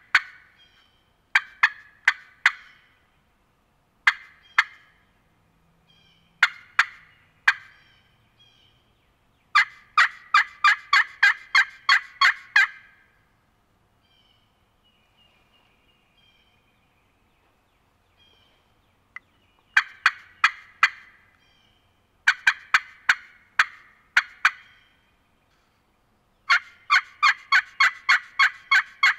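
Turkey pot call, a friction call worked with a striker, imitating a hen turkey: a few sharp single clucks and cuts, then fast runs of about a dozen yelps in a row, played to get a gobbler to answer. The calling stops for several seconds in the middle, then resumes with more runs of yelps.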